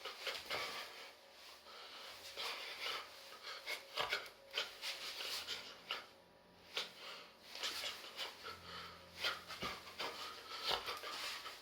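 Irregular rustling and scuffing with small knocks, the sound of clothes and feet moving on the floor during robot dancing, with no music.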